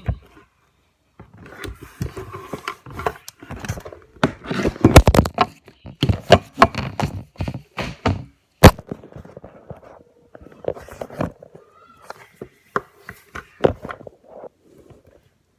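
Handling noise close to the microphone: irregular knocks, taps and rubbing, with one sharp click a little past halfway.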